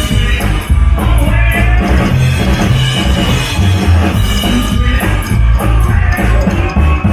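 Live rock band playing loudly, with heavy drums and bass and a singing voice over them.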